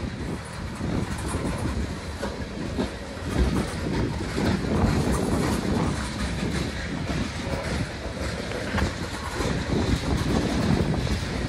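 Freight cars of a CSX mixed freight train rolling past on the rails, a continuous rumble with repeated short clicks from the wheels.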